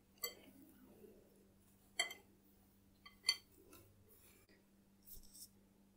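Mostly quiet hand-kneading of stiff dough in a glass mixing bowl, with three faint clicks of hands knocking the glass: one near the start, one about two seconds in and one a little after three seconds.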